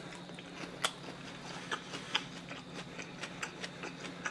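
Close-miked chewing of a mouthful of pressed pork slices (pyeonyuk): soft wet mouth clicks and smacks at irregular intervals. A steady low hum runs underneath.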